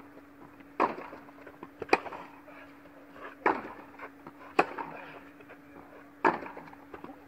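Tennis rally on an indoor court: sharp pops of racket strings hitting the ball and the ball bouncing, about one every second or so, each ringing on in the hall's echo. A steady low hum runs underneath.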